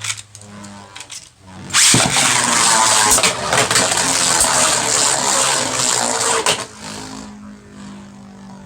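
Vise Leopard and Orichalcum Beyblade spinning tops battling in a plastic stadium: loud grinding and rapid clacking hits for about five seconds, then a quieter steady whirr as they keep spinning.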